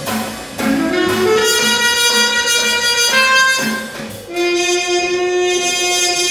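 Free-improvised jazz trumpet playing sliding, bending notes over a few drum strokes, then settling into a long held note about four seconds in.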